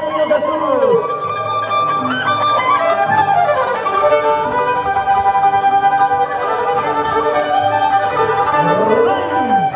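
Tipaki tipaki music, an Andean carnival dance tune: violins lead with held and sliding notes over plucked strings keeping a steady beat.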